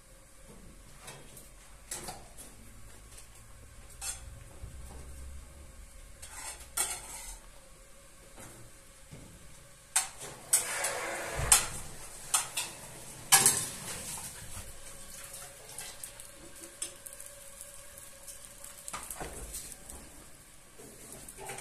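Dishes and utensils clinking and clattering: scattered knocks and clinks, with a busier run of louder clatters in the middle.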